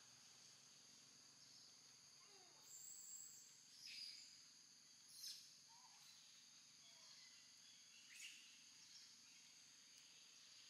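Faint, steady, high-pitched drone of insects such as crickets or cicadas, with a few brief clicks and short chirps. The loudest of these come about four and five seconds in.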